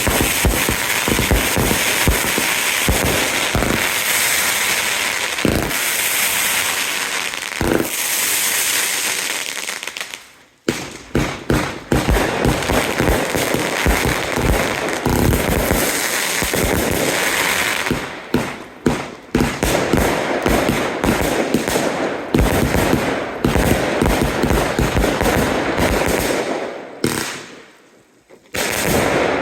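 Consumer fireworks going off in a rapid barrage: dense bangs over continuous crackling, briefly stopping about ten seconds in, then resuming and dying out near the end.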